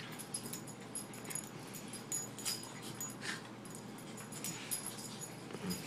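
Two puppies play-wrestling on carpet: soft, scattered scuffling and small dog noises, a short sound about once a second.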